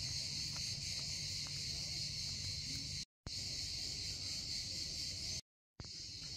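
Steady, high-pitched chorus of insects over a low background rumble, broken by two brief drops to silence about three seconds in and five and a half seconds in.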